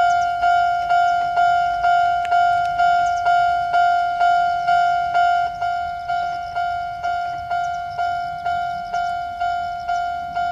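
Railway level-crossing warning bell ringing, one ringing tone struck about twice a second, each strike fading before the next: the crossing is warning of an approaching train.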